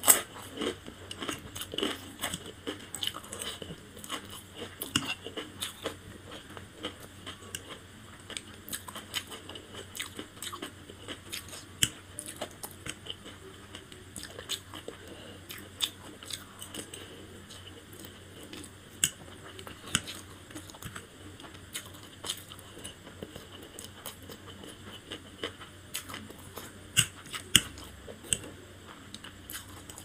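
Close-miked eating sounds: crunching and chewing of a crisp fried Kurkure snack near the start, then chewing of fried noodles, with sharp mouth clicks scattered throughout.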